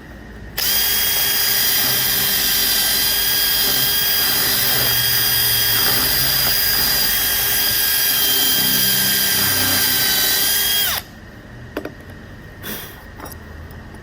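Electric drill running at a steady speed for about ten seconds, boring into wood around an embedded nail to free it, then cutting off suddenly; a few light knocks follow.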